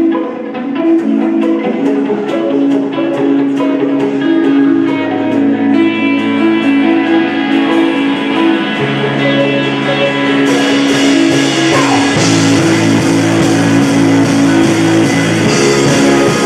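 Live rock band playing a song's intro: a repeating electric guitar figure, with low bass notes coming in about a third of the way through and drums with cymbals joining just past halfway, building to the full band.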